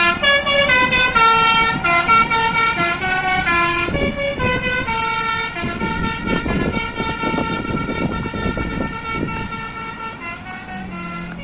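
Basuri musical bus horn ('telolet') playing a quick tune of stepped notes, with the notes held longer after about four seconds, when a low rumbling noise also comes in underneath.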